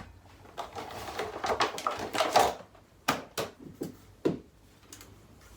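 Packaging being opened and handled: about two seconds of rustling and crinkling, then four sharp clacks as hard items are picked up or set down.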